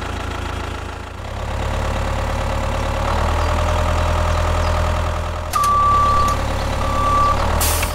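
Tractor engine running steadily, its drone growing a little fuller after about a second. Near the end come two high beeps about a second apart, then a short hiss.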